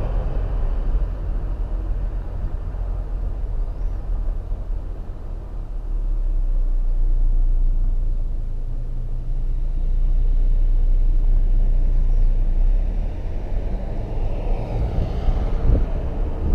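Steady low rumble of a car driving on a city street, swelling twice in the middle, with traffic noise rising near the end.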